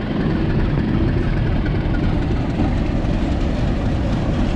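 Meter-gauge diesel locomotive running as its train pulls into the station: a steady, deep engine rumble with wheel noise on the rails.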